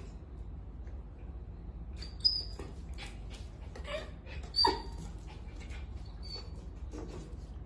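A dachshund puppy gives two short, high yips, about two seconds in and again a couple of seconds later, amid light clicks and scuffs of its paws on a tile floor.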